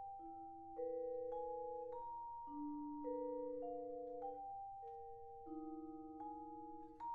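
Vibraphone played with four soft mallets: single notes struck about every half second in a slow broken-chord pattern, alternating low and high. Each note rings on under the next, so they blend into sustained harmony. One low note near the end wavers as it rings.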